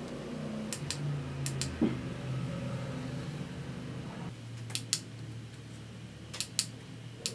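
Push-button of a clip-on LED selfie ring light clicking, pressed several times in quick pairs of clicks, switching the light on. A faint low hum underneath.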